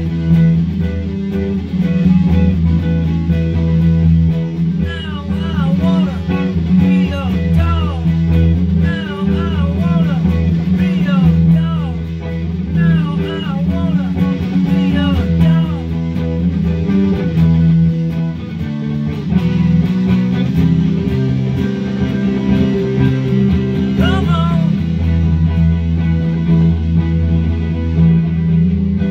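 Electric guitar played over a looped riff from a loop pedal, the low part repeating steadily underneath. On top, a lead line with many notes bent up and back down, busiest through the first half and again a little past the middle.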